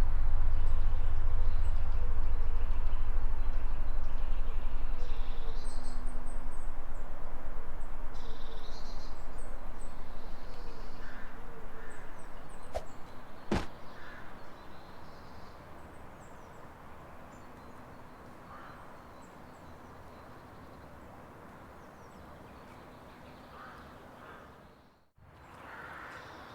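Low outdoor rumble that fades away over about fifteen seconds, with birds calling throughout and a sharp click about halfway through.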